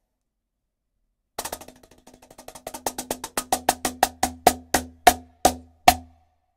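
Meinl Turbo Slaptop cajon, a lap cajon with a walnut top and two snare wires, played with the fingers. About a second and a half in it starts as a fast, soft roll, then grows louder as the strokes slow and spread out into a few strong single slaps, stopping about six seconds in.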